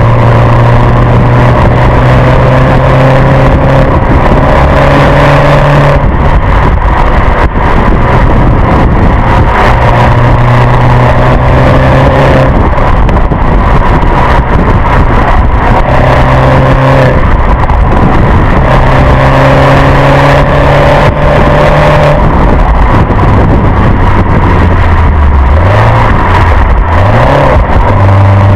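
Mini Clubman R55 on its stock exhaust, driven on the road: a steady engine note under load that drops away and comes back every few seconds as the throttle is lifted and reapplied, over heavy road and wind noise. Near the end the revs fall and rise again quickly a couple of times.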